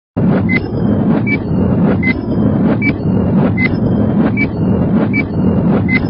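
Countdown intro sound effect: a short high beep with a tick about every three-quarters of a second, over a loud, steady rushing noise.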